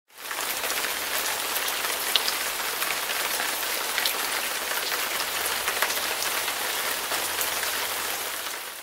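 Steady rain falling: a dense hiss with scattered drop ticks, fading in at the start and fading out at the end.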